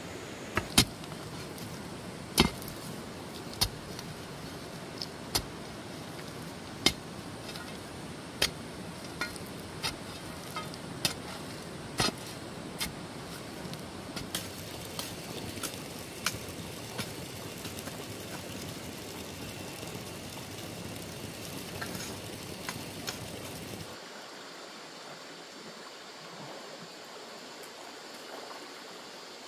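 A series of short, sharp knocks, irregular at roughly one a second, over a steady rushing background; the knocks stop and the background drops abruptly about 24 seconds in.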